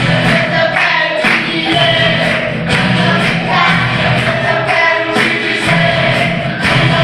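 A children's choir singing a Portuguese gospel song together over instrumental accompaniment with a steady beat.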